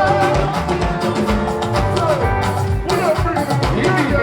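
Live band music with drum kit and guitar playing a steady beat, in a short gap between sung lines.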